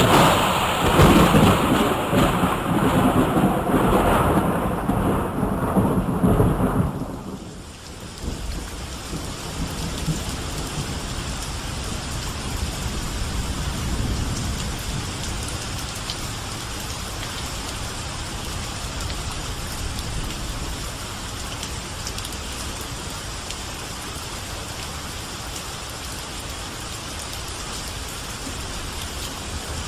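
Thunderstorm: a long, loud roll of thunder over heavy rain that fades out about seven seconds in, leaving steady rain falling, with a fainter swell of thunder about halfway through.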